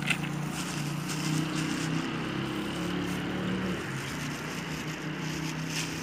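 Vehicle engine idling, a steady low hum.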